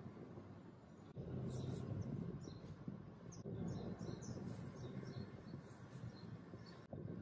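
Large stainless-steel stockpot of laksa fish stock at a rolling boil, bubbling steadily, with short high ticks over the bubbling.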